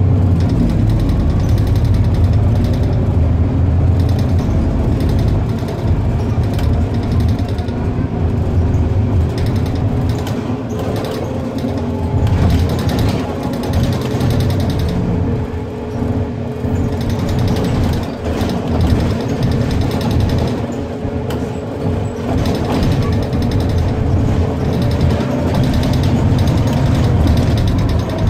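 Irisbus Citelis 12 city bus under way, heard from inside: a steady low engine and road rumble with a whine that slowly rises and falls in pitch as the bus speeds up and eases off.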